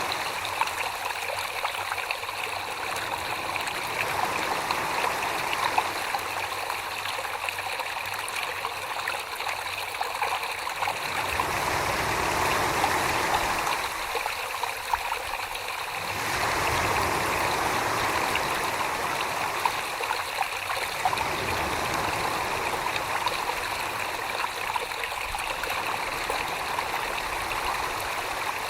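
Continuous trickling, running-water sound, steady throughout, with small scattered clicks and a low rumble that swells and fades a few times.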